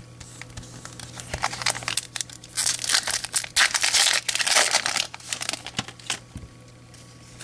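Wrapper of a 2014 Bowman baseball card pack being torn open and crinkled, in short bursts that grow into a louder stretch of crackling from about two to five seconds in, then a few light clicks.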